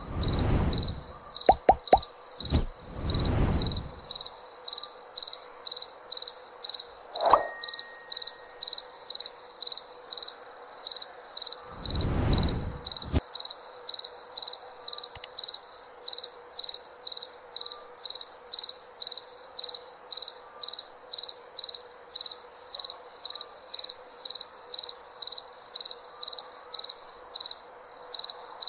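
A cricket chirping steadily in a high-pitched pulsing rhythm, about two chirps a second. Low rumbles come a few times near the start and once about twelve seconds in.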